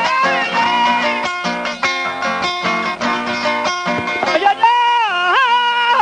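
Mejorana, the small Panamanian five-string guitar, strumming and plucking the torrente accompaniment for décima singing. About four and a half seconds in, a held melodic line that slides up and down in pitch comes in over it.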